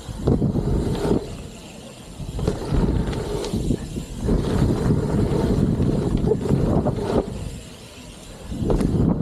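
BMX bike ridden along a dirt jump trail: a noisy rumble of tyres on dirt and wind on the camera microphone, swelling and dropping away twice in quieter stretches.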